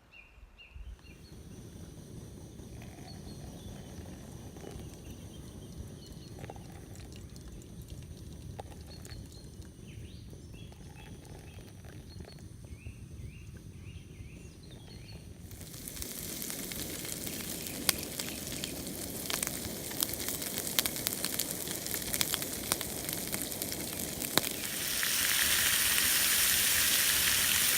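Faint birds chirp over a low steady rush. About halfway through, food starts sizzling and crackling in a pan on a camping stove, turning to a louder, steadier hiss in the last few seconds.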